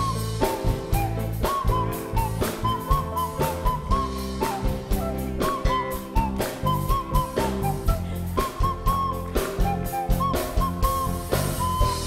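A soprano recorder played through the nose, carrying a melody of short notes that scoop slightly into pitch, over a backing with drums and bass.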